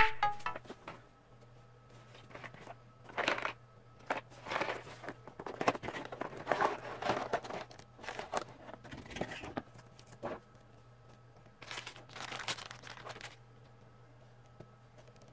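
Plastic packaging crinkling and rustling in irregular bursts as it is handled and opened, over a faint steady low hum.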